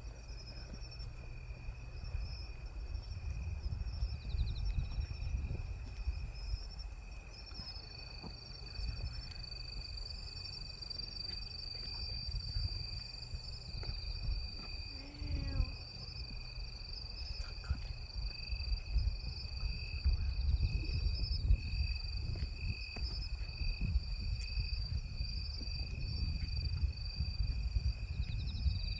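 Insects trilling in a steady high-pitched chorus, with wind rumbling on the microphone underneath.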